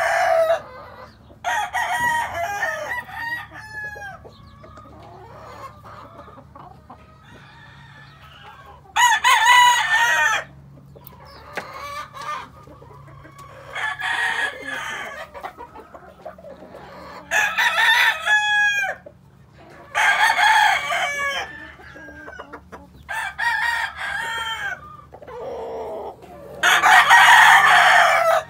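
Sweater-bloodline gamefowl roosters crowing again and again, about seven crows a few seconds apart, each lasting a second and a half to two seconds.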